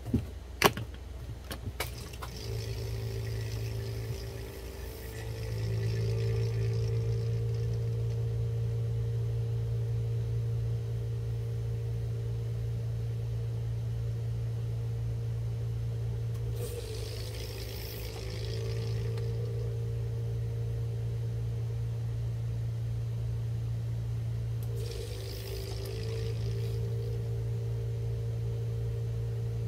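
Electric pump of an ink-filling machine running with a steady hum, drawing the air out of an ink cartridge before it is filled. A few clicks come at the start, the hum steps up a few seconds in, and two short hisses sound over it, one midway and one near the end.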